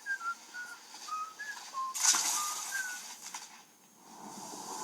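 Whistling a melody in short, clear, steady notes that step downward in pitch. A loud rushing noise burst comes about two seconds in.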